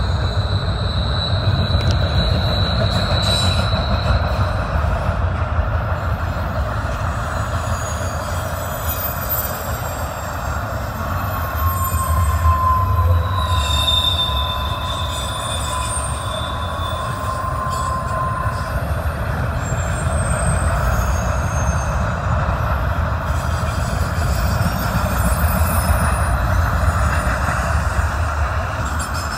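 Intermodal freight cars rolling past at track side, a steady heavy rumble of wheels on rail. Thin wheel-squeal tones come and go over it: a high one for the first few seconds, and a lower whine with a higher one above it through the middle for several seconds.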